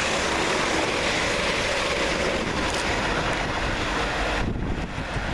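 Two coupled Class 350 Desiro electric multiple units passing through the station at speed: a steady rush of wheel and air noise that falls away sharply about four and a half seconds in as the train clears.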